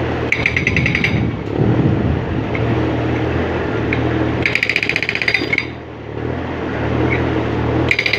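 Hydraulic rock breaker (Hammer Master HM1180) on an excavator hammering in three short bursts of rapid blows, over the steady drone of the excavator's diesel engine.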